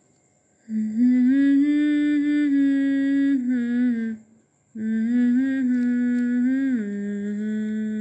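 A voice humming a slow melody in two long, held phrases with a short breath between them, the second phrase stepping down to a lower held note near the end.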